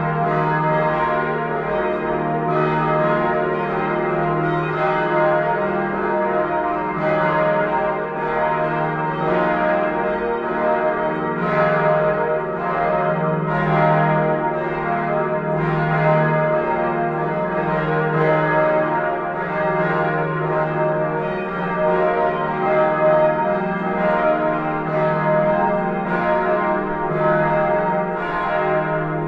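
Several church bells of the Neumünster in Würzburg ringing together, their strikes overlapping in a dense, continuous peal.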